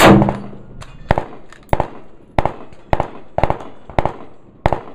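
A single loud rifle shot from a .223 bolt-action rifle right at the start. It is followed by a steady string of quieter, sharper gunshots, about one every half second or so, too fast for a bolt gun and so from another firearm being fired rapidly on the range.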